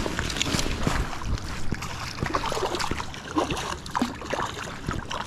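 Stream water running, with irregular splashes as a hooked trout is brought up to the bank.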